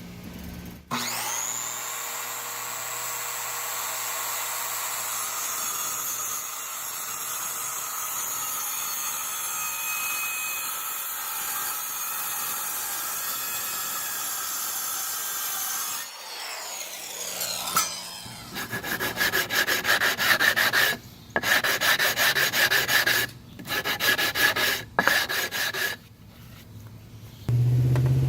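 Power tools cutting wood: a motor spins up about a second in and runs steadily for about fifteen seconds. After a short pause, a tool runs in several rapid, pulsing bursts that stop and restart a few times.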